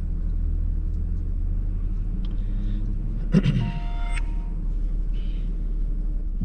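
Steady low engine and road rumble heard inside a moving car's cabin. A brief louder sound with a couple of held tones cuts in about three and a half seconds in.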